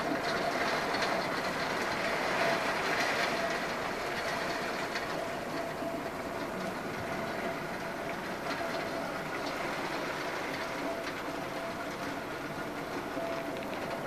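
Heavy rain beating on a window pane: a steady rushing patter, with a faint steady hum underneath.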